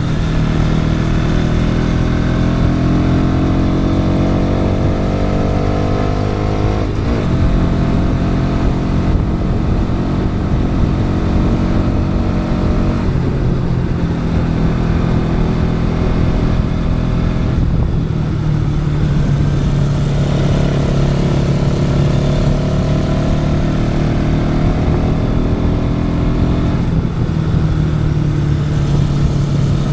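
Bajaj Pulsar NS200's single-cylinder engine pulling under throttle, heard from onboard the motorcycle. Its pitch climbs and then drops back four times, with gear changes and throttle lifts through curves.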